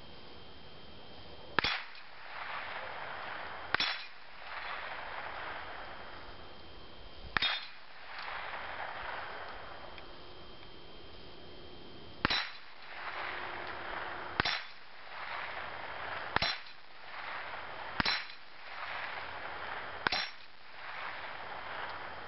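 .22 rifle bullets striking the steel plates of a dueling-tree target, eight sharp clangs with a short metallic ring, each hit swinging a plate over to the other side of the post. The hits come about two seconds apart, with a longer pause of about five seconds after the third.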